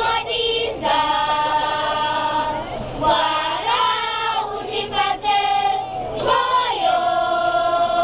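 A choir of children and teenagers singing together, unaccompanied, in long held notes that change pitch from phrase to phrase.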